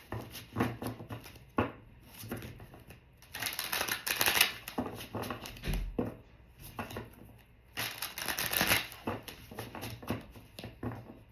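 Tarot cards being shuffled by hand: rapid flicking and riffling of card edges, coming in two longer bursts (about three seconds in and again about eight seconds in), with single snaps and slaps of cards between them.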